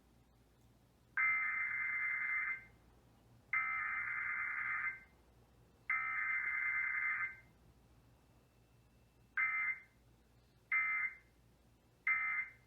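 Emergency Alert System SAME digital header, a harsh two-tone modem-like data burst sent three times, followed by three short end-of-message bursts, with no attention tone or voice message between them, as in a weekly EAS test.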